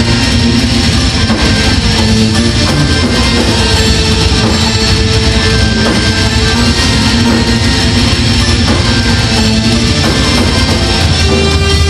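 Death metal band playing live at full volume: distorted electric guitar and bass over a drum kit, continuous and dense.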